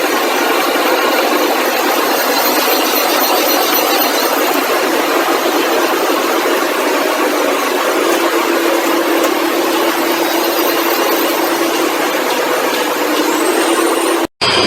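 Large metal-working lathe running and turning steel: a loud, steady, harsh mechanical noise, with a low steady hum joining about halfway through. The sound cuts out abruptly near the end.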